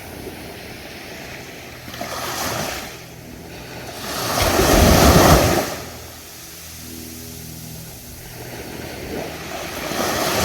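Ocean waves breaking on a beach, surging and receding: a small swell, then a loud one about halfway through, then another rising near the end.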